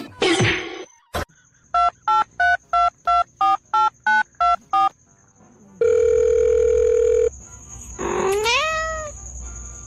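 A telephone keypad being dialled: ten short beeps of slightly varying pitch, about three a second. A steady phone tone follows for about a second and a half. A short rising-then-falling call comes near the end.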